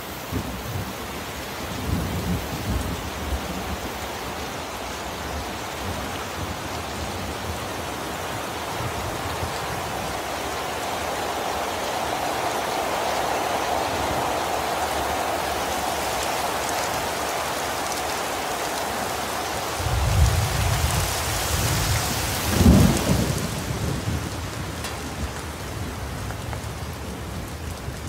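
Steady rain falling on water, with rumbles of thunder: a low one about two seconds in and a longer one from about twenty seconds in, peaking a couple of seconds later as the loudest sound.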